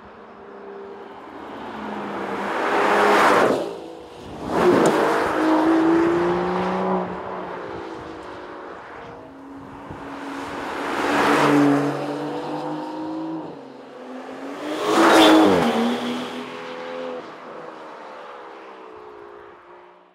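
Aston Martin DBS Superleggera Volante's twin-turbo V12 accelerating hard and sweeping past four times, its note climbing and falling through the gears. The pitch drops sharply as it goes by, loudest about three, five, eleven and fifteen seconds in.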